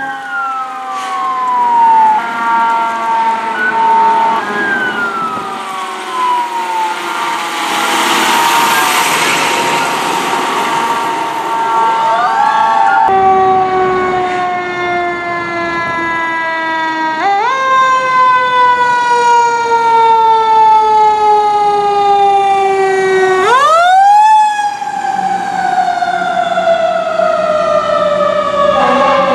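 Pierce fire truck sirens sounding in traffic. First, siren wails fall in pitch. Then another truck's siren twice winds up quickly and coasts slowly down, in the manner of a mechanical siren.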